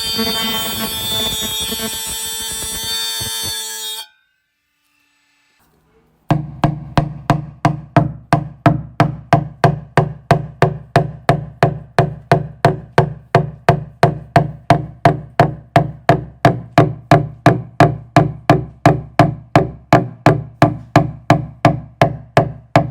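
Metal being cut, a harsh ringing screech that stops about four seconds in. After a short silence comes steady, even knocking, about two and a half strikes a second.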